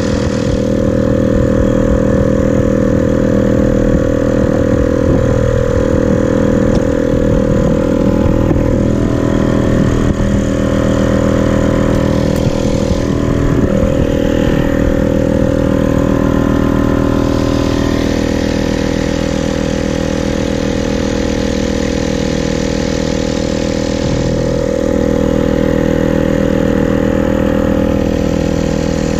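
Hirth F-23 two-stroke twin engine of a Quicksilver MX Sport ultralight idling steadily with its propeller turning.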